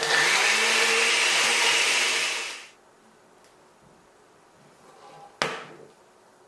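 Countertop blender running, blending pie, oats and milk into a shake, its pitch rising slightly as it goes, then switched off about two and a half seconds in. A single sharp knock about five and a half seconds in.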